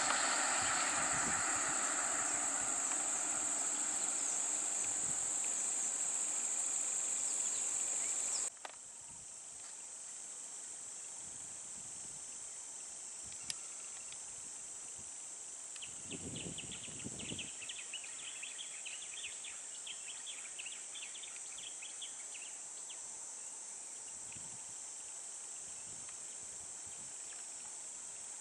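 Steady high-pitched insect drone. For the first eight seconds engine and road noise run under it, then stop abruptly. Brief chirping comes in the middle.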